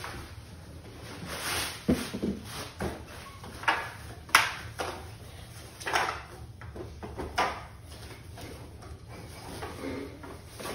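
Irregular handling noises from a paddle board's inflation pump and its hose being unpacked and fitted: rustling and scuffing with scattered clacks of plastic, the sharpest about four seconds in.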